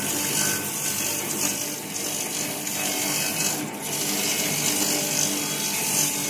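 Skewer-sharpening machine running steadily: an electric motor hum with an even grinding hiss from its sharpening disc.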